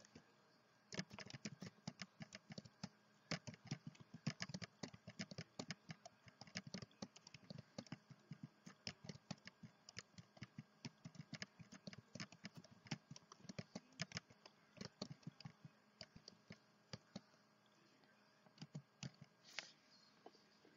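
Computer keyboard typing: a long run of rapid key clicks, a short pause, then a few more keystrokes near the end.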